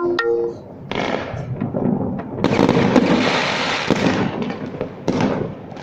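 Fireworks going off: sharp bangs, then a dense spell of crackling about a second and a half long, with more bangs near the end.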